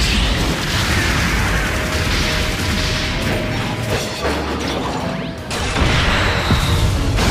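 Animated giant-robot battle sound effects: mechanical clanks and booming impacts over a heavy low rumble, with music underneath.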